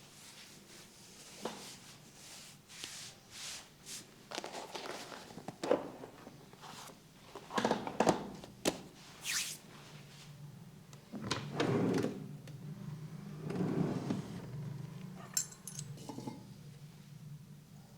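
Hands massaging a head: irregular rubbing swishes over hair and skin, mixed with sharp taps and knocks.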